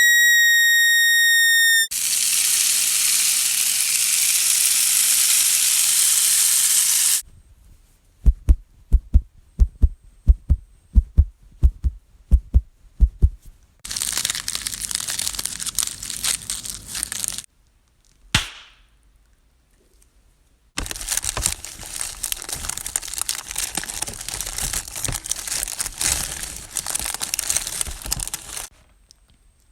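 A sequence of separate Foley sound effects: a steady beep that stops about two seconds in, a steady high hiss, a run of about a dozen low thumps, then long stretches of crackling, rustling noise.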